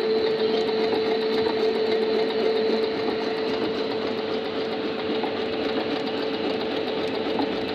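Singer C5605 computerized sewing machine running at an even speed, its needle stitching a wide pattern stitch through fabric: a steady motor hum with a constant pitched whine.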